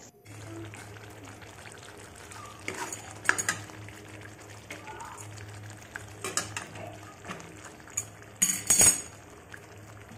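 A metal ladle stirs thick masala gravy in a metal kadhai, with scattered clinks and scrapes of metal on metal; the loudest come about nine seconds in. A steady low hum runs underneath.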